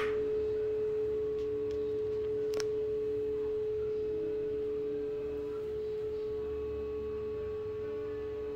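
Delta Breeze bathroom exhaust fan running with a steady single-pitched hum over a low airflow rumble. A switch clicks right at the start as the fan's light goes off, and another click comes about two and a half seconds in.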